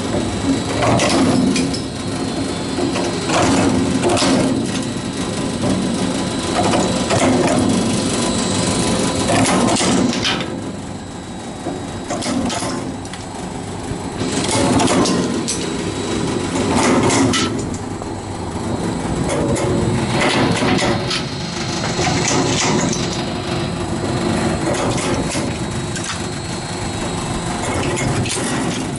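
Coconut shell peeling machine running: its 3 HP electric motor drives a V-belt and gearbox with a steady hum, while the hard shell of a whole coconut is repeatedly cracked and scraped off.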